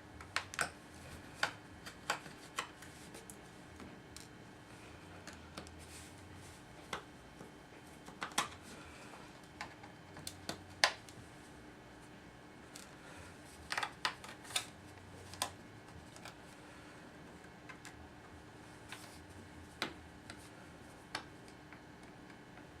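Scattered light clicks and taps of a small screwdriver and tiny screws being taken out of a MacBook Air's aluminium bottom cover and set down, a dozen or so at uneven intervals, over a faint steady hum.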